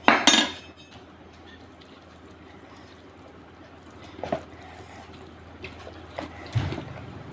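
Close-miked eating sounds of chicken curry with rice: a loud, sharp wet sound right at the start, then quieter wet mouth smacks and clicks, with a soft thump near the end.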